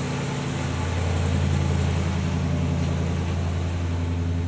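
Dodge Caliber's engine idling steadily, its level rising slightly about a second in.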